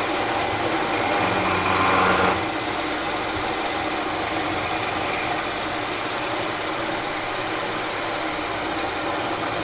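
Milling machine cutting metal: a steady, loud machining noise, louder for the first two seconds or so, that cuts off suddenly at the end.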